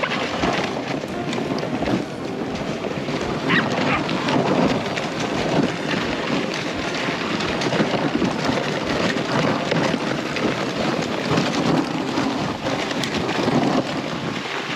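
Dog sled moving over snow behind its team: a steady rushing noise of runners and wind, with a few short high sounds about four seconds in.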